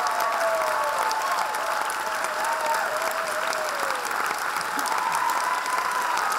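Theatre audience applauding, dense clapping with voices whooping and cheering that rise and fall above it.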